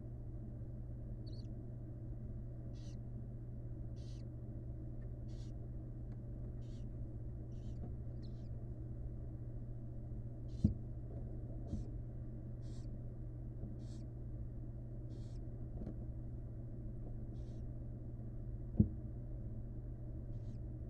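Barn owl giving short, breathy hissing calls over and over, about one every second or two, over a steady low electrical hum from the nest-box camera. Two sharp knocks stand out, one about halfway through and one near the end.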